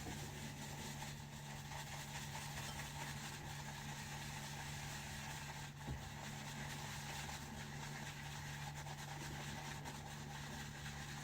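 Steady low hum with a faint even hiss: room tone, with one faint click about six seconds in.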